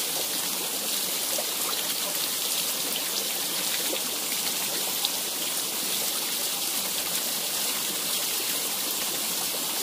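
A small trickle of water spilling off a rock face and splashing onto the stones below, running steadily.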